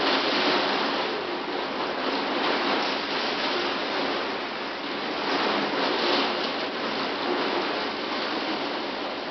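Torrential rain and gusting wind of a severe thunderstorm: a dense, steady hiss that swells and eases with the gusts.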